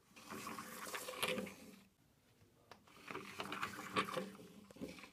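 Plastic toy car's wheels rolling across a tabletop as it is pushed by hand, in two runs with a short pause between them.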